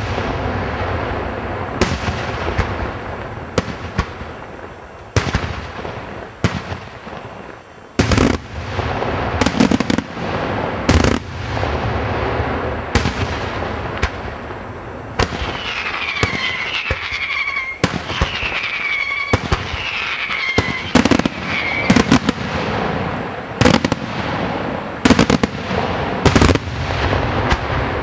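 Aerial firework shells bursting in sharp booms every second or two, over a continuous crackle and rumble of further bursts.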